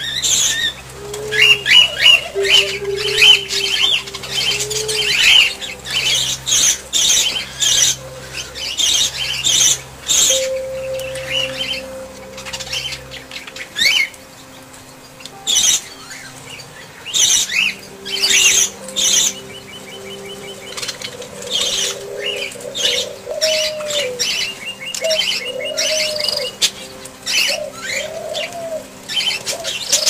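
Aviary birds, doves among them, flapping their wings again and again as they fly and land, with frequent high chirps and lower calls in between.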